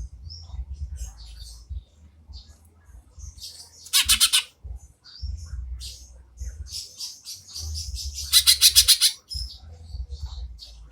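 Green leafbird (cucak ijo) song: a string of varied high chirps and whistles, broken twice by a loud, very rapid rattling trill, once about four seconds in and again at about eight and a half seconds. A low hum comes and goes underneath.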